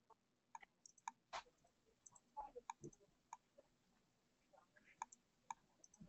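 Faint, irregular computer mouse clicks over near silence.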